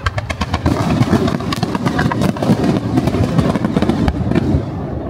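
Fireworks going off in a rapid barrage: many overlapping sharp pops and bangs over a low rumble, the crackle thinning out near the end.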